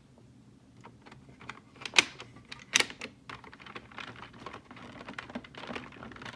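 Plastic clicks and taps from the toy buckle being handled, an irregular run of small clicks with two sharp, louder clicks about two and three seconds in.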